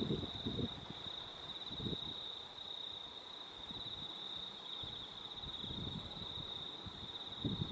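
A steady, high-pitched insect trill, like crickets, runs without a break, with a few soft low rustles or bumps. The strongest bump comes near the end.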